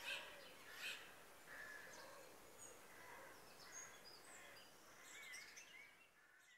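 Faint birdsong: scattered chirps and short whistled calls over a soft outdoor hiss, fading out near the end.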